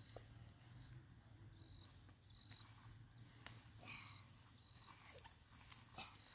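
Near silence: faint rustling and light snaps of watermelon vines being pulled apart by hand, with short high chirps repeating in the background.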